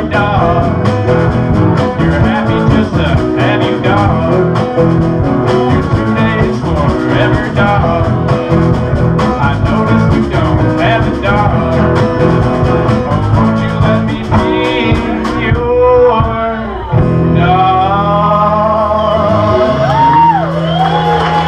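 A man singing a song to strummed guitar. About sixteen seconds in the steady strumming stops, and a held chord rings under long drawn-out sung notes.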